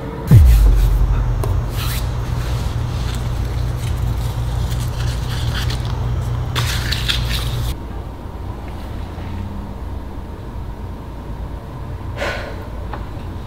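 A deep boom that drops sharply in pitch, then a low steady rumble that runs for about seven seconds and stops suddenly, with a short hiss just before it ends.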